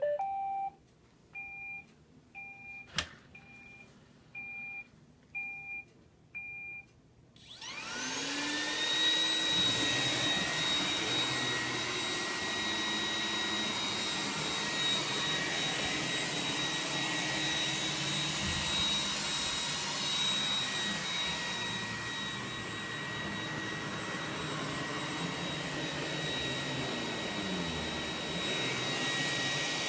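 iRobot Roomba 980 robot vacuum starting a cleaning run: a short rising chime, then a string of short beeps about one a second with a single click among them. About seven seconds in, its vacuum fan spins up with a rising whine and then runs steadily.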